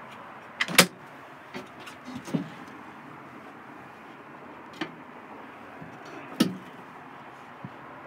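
Sharp clicks and knocks from campervan kitchen fittings being handled, over a steady hiss. The loudest is a double click about a second in, and another strong knock comes a little past six seconds in.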